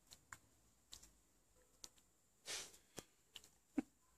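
Faint scuffling of a dog and a cat play-wrestling: scattered soft clicks and rustles, with one breathy huff about two and a half seconds in and a sharper click near the end.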